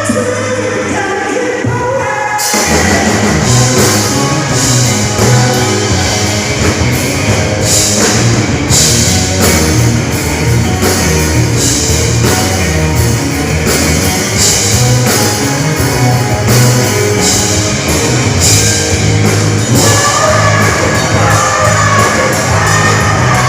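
Rock music with singing: a quieter opening gives way to the full band with drums about two seconds in.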